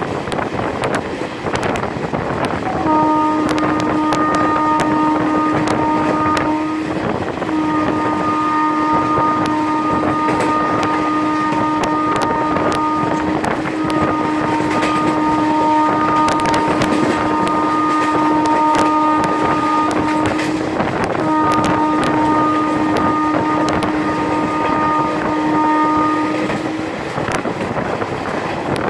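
Indian Railways WAM-4 electric locomotive's air horn sounding in four long, nearly unbroken blasts, the train madly honking, over the rushing wind and wheel-on-rail noise of the passenger train running at about 100 km/h.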